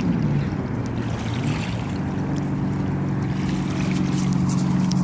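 Engine of a passing motorized watercraft running on the river, its pitch dipping and rising in the first couple of seconds, then holding steady and growing slowly louder.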